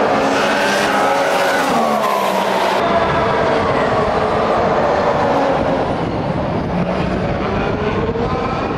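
2014 Formula One cars' 1.6-litre turbocharged V6 engines running at speed on the circuit, the engine note sliding down and then up as they pass. The sound changes abruptly about three seconds in.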